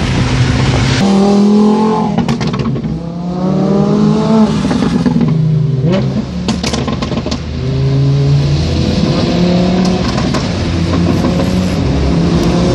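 Lamborghini Huracán V10 engines accelerating through the gears. The engine note climbs and then drops back at each upshift, several times over, with a few sharp cracks around the shifts.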